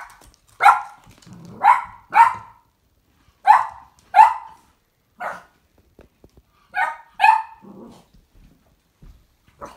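Cavalier King Charles spaniel puppy barking: about ten short, sharp barks with uneven pauses, some coming in quick pairs.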